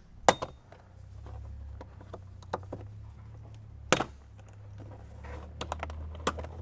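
Plastic kick-panel trim on a Ford Bronco being pulled off, its retaining clips popping loose with sharp clicks: a loud one just after the start, another about four seconds in, and a quick run of smaller clicks near the end. A steady low hum sits underneath.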